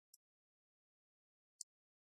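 Near silence, broken by two brief, faint, high-pitched ticks: one just after the start and one near the end.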